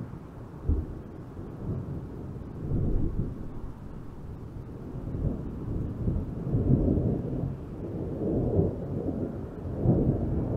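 Thunder rumbling low and rolling, swelling and fading in several waves, with a short low thump less than a second in.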